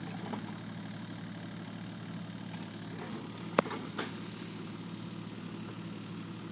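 Excavator's diesel engine running at a steady pitch, with one sharp click a little over three and a half seconds in.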